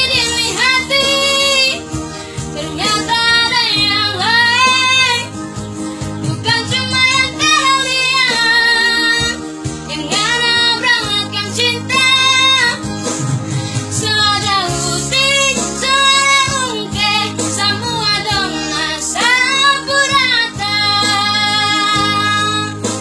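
A child singing an Indonesian song in a high voice over instrumental accompaniment, with long held notes that waver in pitch.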